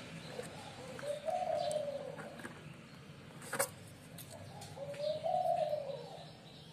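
A pigeon cooing twice, two drawn-out coos about four seconds apart, with one sharp click between them.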